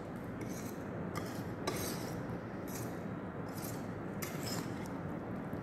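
A wire whisk stirring vegetables through thick béchamel sauce in a stainless steel pan, its wires scraping the metal in short scrapes about once a second over a steady background hiss.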